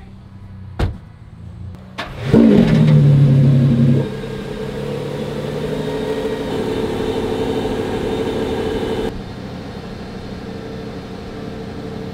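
A thump, then a Lamborghini Revuelto's V12 starting about two seconds in with a short, loud rev flare, settling after about a second and a half to a steady idle.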